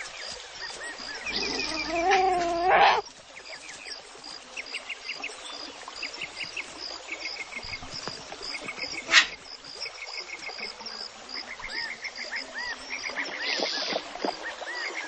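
Insects chirping in fast repeated trains, with a steady ticking pulse above them. About a second in comes a red fox cub's loud, rising and wavering whine lasting about a second and a half, and near the middle there is one sharp click.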